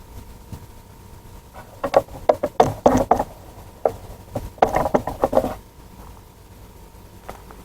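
Two spells of irregular knocking and rattling, each a second or more long, the first about two seconds in and the second about four and a half seconds in, with a faint steady tone underneath.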